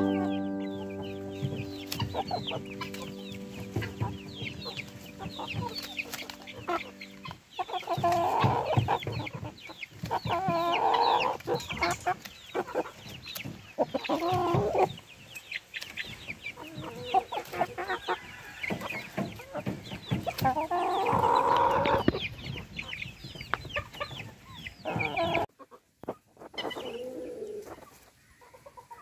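A flock of chickens clucking and calling, with many short, quick high calls over lower clucks. It is loudest through the middle, then drops off suddenly to fainter clucking near the end.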